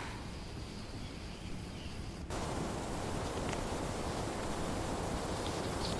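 Steady outdoor ambient noise, a rustling hiss; about two seconds in it cuts abruptly to a louder, fuller hiss, like an edit between two outdoor recordings.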